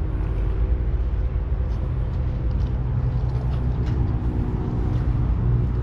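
Steady low engine drone.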